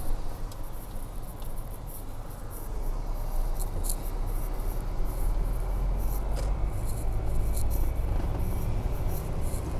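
Car cabin road noise: the low rumble of the engine and the tyres on a wet road, growing louder about three seconds in as the car picks up speed.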